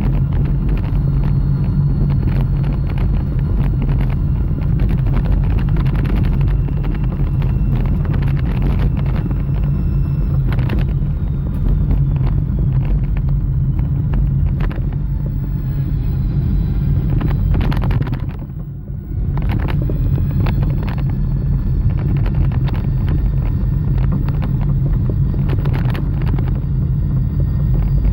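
A car driving: a steady low rumble and hum with frequent short knocks and rattles. It briefly quietens about two-thirds of the way through.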